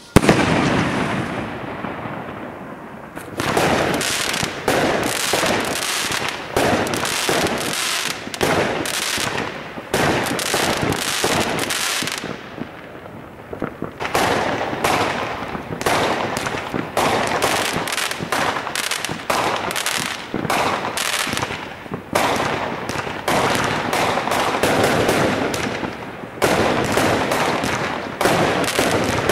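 Consumer fireworks going off: one loud bang right at the start, then rapid runs of bangs and crackling, with a short lull a little before halfway.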